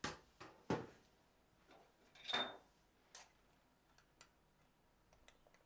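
A few faint light knocks and clicks: three in the first two and a half seconds, the last with a short metallic ring, then a couple of fainter ticks.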